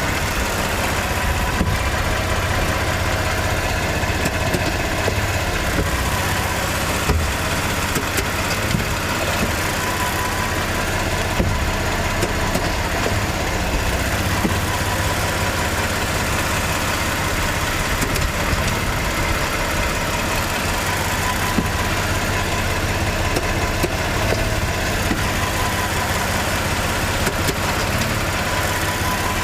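Toyota RAV4 running steadily, with a few sharp knocks at irregular intervals. This is the clunking noise whose cause the owner has not found despite replacing almost everything.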